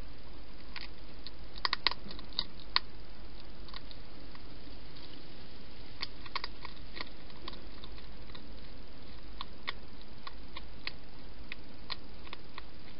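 Wild hedgehog eating from a plastic dish: irregular crisp crunching clicks, a quick cluster of louder ones about two seconds in, then sparser ones, over a steady faint hiss.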